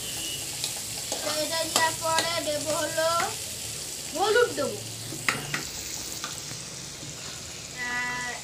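Carrots, onion and ginger frying in oil in a deep wok, sizzling steadily, while a metal spatula stirs them with scattered scrapes and clinks against the pan.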